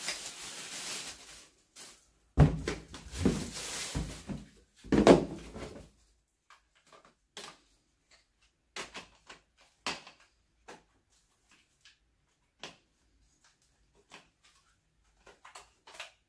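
Plastic vacuum parts and packaging being handled: rustling and a few knocks in the first few seconds, then scattered light clicks and taps.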